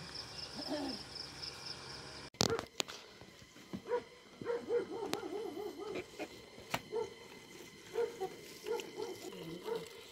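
Insects drone steadily on one high note, which cuts off about two seconds in. A few sharp clicks follow, then repeated short wavering calls from a bird or animal, one to a few every second.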